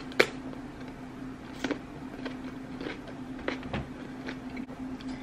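Close-up eating sounds: a crisp bite into a whole cucumber, then scattered crunchy chewing clicks.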